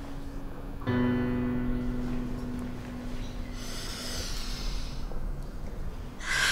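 Soft, sparse background film score: a sustained note, then a new note struck about a second in that rings and fades. Near the end comes a sharp, loud breath in from a crying woman.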